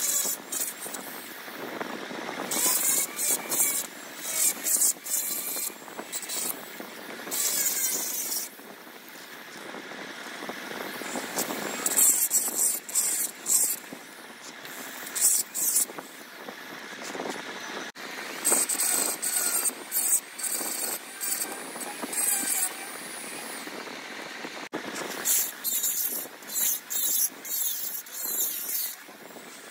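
Handheld rotary tool with a small burr grinding inside a Yamaha RX135 two-stroke cylinder in repeated short bursts, cutting an extra intake port. Each burst is a high grinding whine that starts and stops every second or two.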